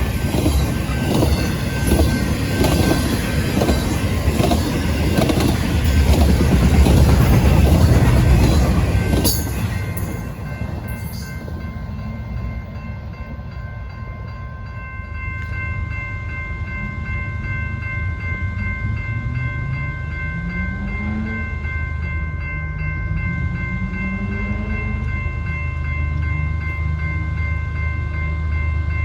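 Train passing close by, its wheels clattering rhythmically over the rail joints, loudest about seven seconds in and then falling away about ten seconds in. After that a steady high whine and a low engine hum remain, the hum rising in pitch a few times.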